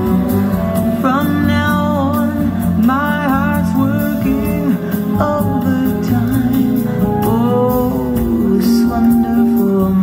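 A song with a sung melody and guitar, played back over Altec A7 theatre horn loudspeakers driven by an Accuphase preamplifier and power amplifier, heard in the listening room.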